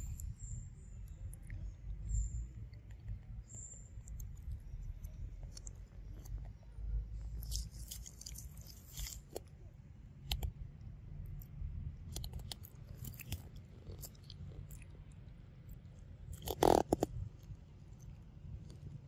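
Close-up macaque mouth sounds: scattered soft wet clicks and smacks over a low rumble, with one louder short sound a little before the end.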